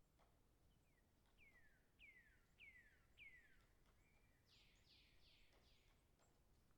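Faint birdsong: five falling whistled notes about half a second apart, then four harsher notes, over a few faint scattered taps of a woodpecker pecking as it feeds.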